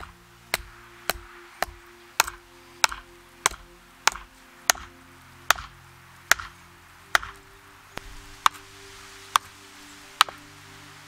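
A birch wood stake being driven into the ground with repeated sharp wooden knocks, about sixteen blows at a little over one a second, slowing slightly later on. Background music plays underneath.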